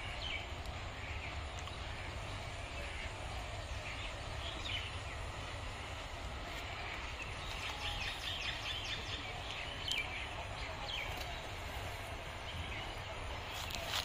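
Open-air ambience: a steady low rumble with scattered, faint bird calls.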